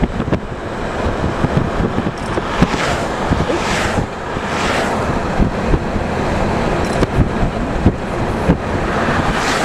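Road and wind noise from a moving car: steady tyre rumble with wind buffeting the microphone, and a few brief whooshes.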